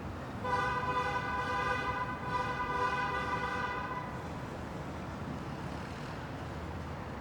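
A vehicle horn honking in two long blasts, about a second and a half each, over the steady rumble of heavy city traffic.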